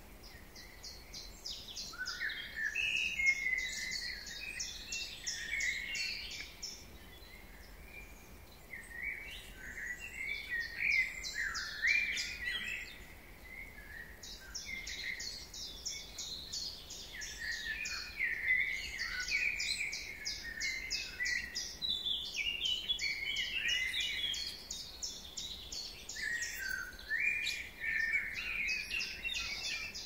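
Chorus of several songbirds singing over one another: rapid high trills of quick repeated notes and short falling whistled phrases, with two brief lulls.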